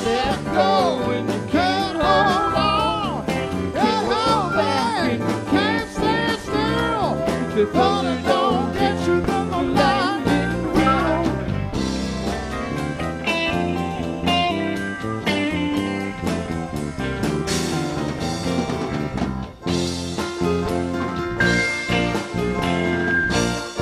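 Live country-rock band playing an instrumental break: a lead line of bending, wavering notes over electric bass and drums, settling into steadier notes and chords about halfway through.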